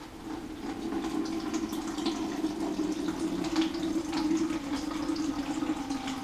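Wort running from the mash tun's valve into a plastic jug, a steady splashing pour. The brewer is drawing off the first cloudy runnings to recirculate them (the vorlauf).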